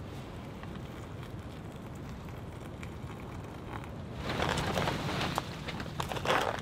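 Hot water poured from a small camping kettle into a foil freeze-dried meal pouch. From about four seconds in, louder irregular crinkling and scraping as the pouch is handled and the food stirred inside it.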